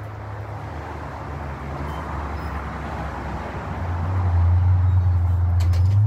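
Motor vehicle engine running with a low steady hum, drawing closer and growing louder about four seconds in.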